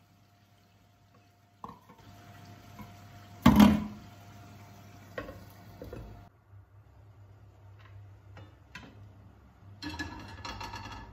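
Cookware being handled on a stovetop: a sharp click, then a loud clatter about a third of the way in, clinks as a glass lid is set on a frying pan, and a longer metallic rattle near the end as a stainless steel pot's lid is taken hold of.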